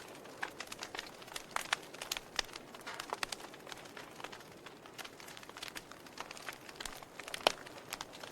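Wood fire in a fireplace crackling, with irregular sharp pops over a low steady hiss; one louder pop about seven and a half seconds in.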